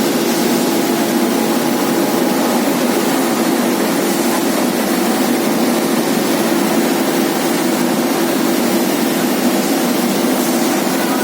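Industrial component washing machine running: a steady, unchanging machine drone with a constant low hum.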